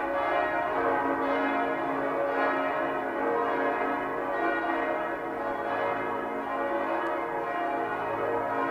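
Several church bells ringing together in a continuous full peal, their overlapping tones sounding on without a break and restruck every second or so.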